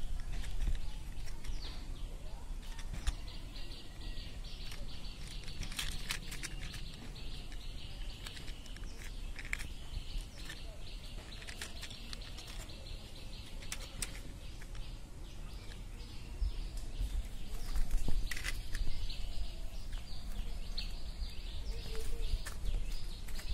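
Small birds chirping continuously in many short, high notes, over low rumble of wind and handling noise, with scattered clicks and rustles of leaves and stems.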